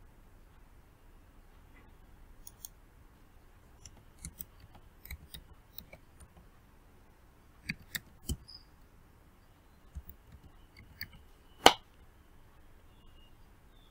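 Irregular, faint clicks of typing on a computer keyboard, with one louder click near the end.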